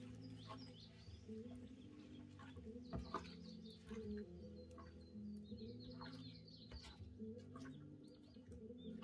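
Faint bird calls, short chirps and cluck-like notes, over soft music with held low notes that shift in pitch.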